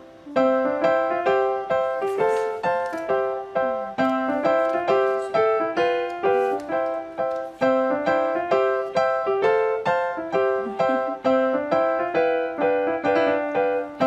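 Background piano music: a steady run of single notes, each struck and fading, forming a light melody.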